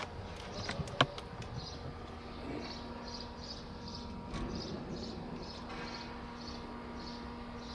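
An insect chirping in short high notes about twice a second over a steady electrical hum, with one sharp click about a second in.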